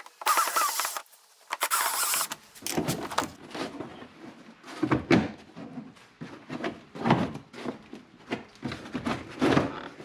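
A cordless drill spins out Phillips screws in two short runs in the first two seconds. After that come irregular knocks and rattles of plastic parts being handled.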